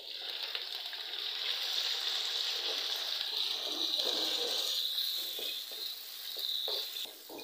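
Raw minced chicken sizzling in hot oil with fried onions in a kadai as it is stirred with a wooden spatula, a steady hiss that fades near the end.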